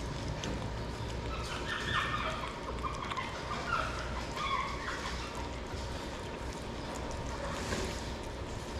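Shih Tzu puppy eating raw chicken meat from a hand: wet chewing and smacking. A few short, high squeaks come in the first half, over a steady low hum.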